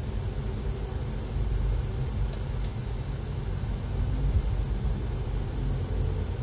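Steady low rumble of a car's engine and tyres, heard from inside the moving car on a city street at moderate speed.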